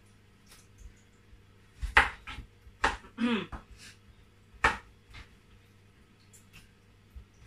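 Kitchen knife cutting through firm plantain onto a wooden chopping board: three separate sharp knocks, irregularly spaced, in an otherwise quiet room.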